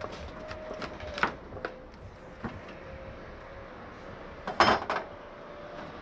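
Knife cutting a whole green breadfruit in half: a few scattered knocks and cracks, then a louder cluster of cracks and knocks about four and a half seconds in.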